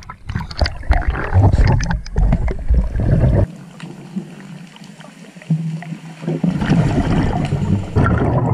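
Scuba breathing heard through the water: a diver's exhaled bubbles from the regulator, loud and rumbling, with a quieter stretch between breaths about halfway through.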